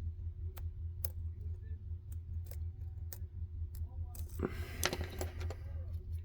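Lock pick and tension tool working the pin stack of a Ruko 600 padlock with spool pins: scattered sharp metallic clicks, then about four seconds in a second or so of denser scraping and rattling. A steady low hum runs underneath.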